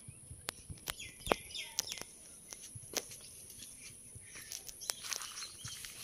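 Outdoor yard ambience: a steady high hiss with scattered sharp clicks and taps, the loudest about a second in, and a few faint chirps.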